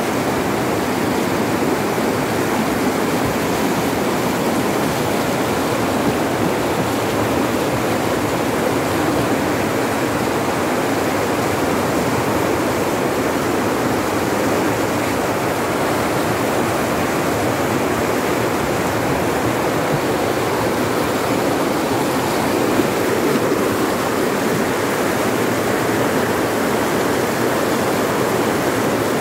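Swift river rapids rushing steadily over large boulders, an even churning of white water all around the boat.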